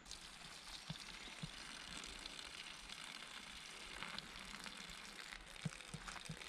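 A faint, steady hiss with a few soft clicks scattered through it.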